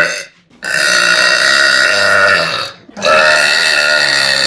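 A girl burping loudly: two long, drawn-out burps of about two seconds each, one right after the other, with the end of a previous burp just at the start.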